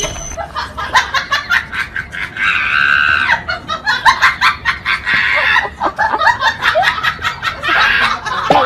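People laughing, with rapid repeated bursts of giggling and shrieks.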